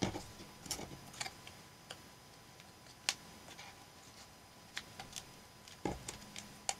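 Paper collage pieces being handled and moved on a journal page: scattered, irregular light clicks, taps and rustles of paper, with a couple of slightly heavier taps near the start and about six seconds in.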